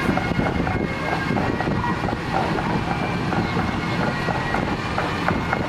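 Engine of a parade float's vehicle running steadily as it passes, with light clicking and rattling over a low hum.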